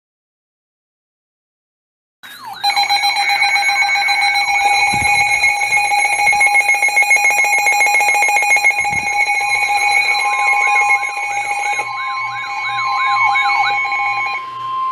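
Emergency alert tones start abruptly after about two seconds of silence: several steady alarm tones sound together, overlaid by a warbling, sweeping tone. Another steady tone joins about ten seconds in, and all of them stop just before a National Weather Service warning is read.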